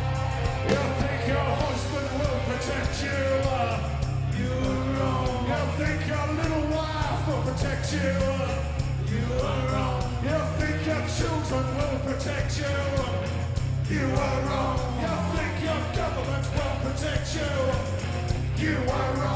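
Live rock band playing loud, with a heavy bass and drum low end and wavering, bending pitched lines over it.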